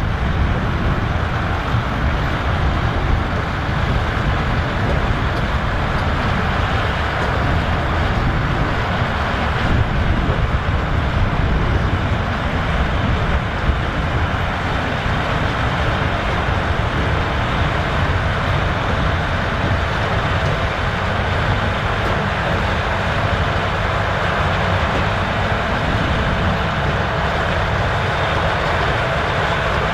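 Massey Ferguson 3070 tractor's diesel engine running steadily with a low rumble and a faint steady whine.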